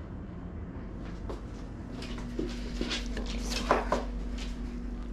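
Dishes and kitchen utensils clattering as they are handled, a run of short clinks and knocks with the loudest just before four seconds in, over a steady low hum.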